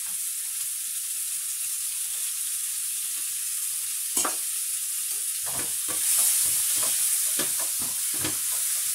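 Chicken wings sizzling in hot oil in a nonstick frying pan, a steady hiss. A single clink about four seconds in, then from about five and a half seconds a spatula knocks and scrapes against the pan as the wings are stirred with the curry paste.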